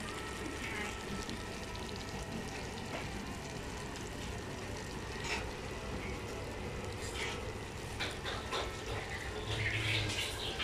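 Mapo tofu sizzling steadily in a hot stone pot, with a few light clicks of tableware.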